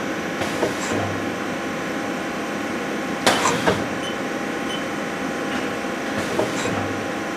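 2002 Haas SL-10T CNC lathe turret indexing through tool changes over the machine's steady hum: brief low whirs of the turret turning near the start and again near the end, and two short, loud, noisy bursts a little over three seconds in.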